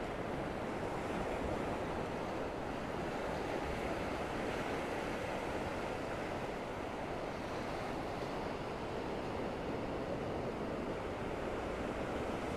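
Gulf surf breaking gently and washing up the beach: a steady rush with slow, slight swells.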